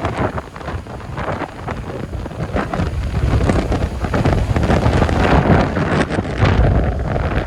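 Storm-force wind gusting, buffeting the microphone with deep rumbles and rushing noise. The gusts grow stronger about three seconds in.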